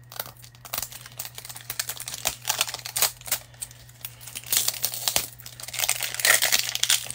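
Crinkly wrapping on a Mini Fashion toy capsule crackling and tearing as it is worked open by hand; scattered crackles at first, growing denser and louder about halfway through.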